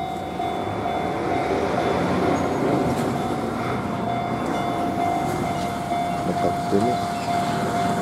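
Japanese level-crossing warning bell ringing steadily over the rumble of a passing container freight train.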